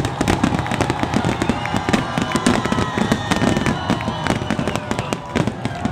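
Fireworks display going off: a dense, rapid run of bangs and crackles, one after another without a break.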